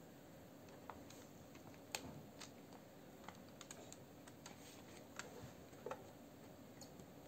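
Faint, scattered light clicks and crackles of self-adhesive tint film being handled and pressed down by hand onto a plastic tail-light lens.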